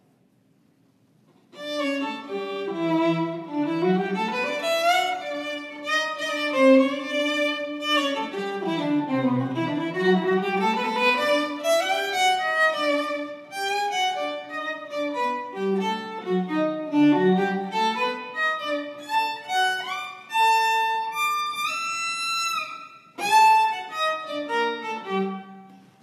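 Solo violin playing a melody of quick runs that rise and fall. It comes in about a second and a half in, pauses briefly near the end, then plays a closing phrase.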